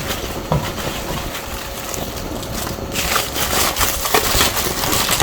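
Rustling, crinkling and scraping of cardboard box packaging as the computer is handled in it, getting louder and more crackly about three seconds in.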